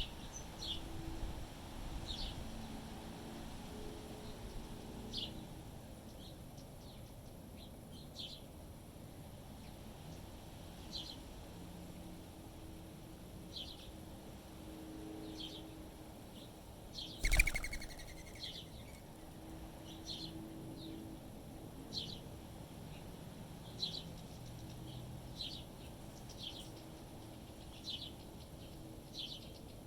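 Small birds chirping: short, high chirps repeated every second or two over a low rumble of wind. About 17 seconds in comes one louder, sudden sound, sliding down in pitch.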